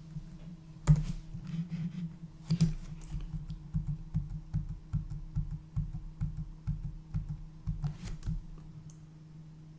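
Computer keyboard being typed on in a quick, uneven run of key taps, with a couple of louder clacks about a second in and near three seconds, over a steady low hum.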